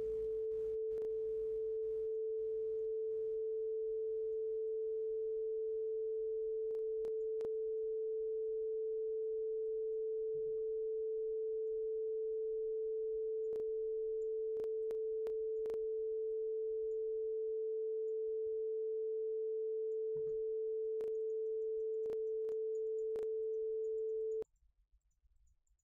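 Arturia ARP 2600 synthesizer oscillator sounding one steady, pure tone at a single pitch that cuts off suddenly near the end.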